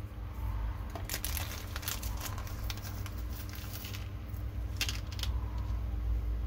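Small plastic bag crinkling and M3 steel screws clicking as they are shaken out into a hand and set down on a plastic mat, in a string of short sharp clicks over a steady low hum.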